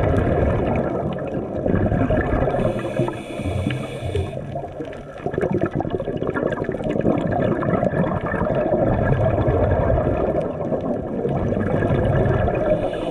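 Muffled underwater water noise heard through a GoPro's waterproof housing: a steady, churning gurgle of moving water, with a brief hiss about two and a half seconds in.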